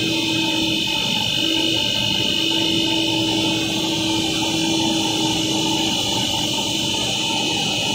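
LLDPE stretch film cast extrusion line running: a steady machine drone with a high whine and a low hum that cuts in and out a few times.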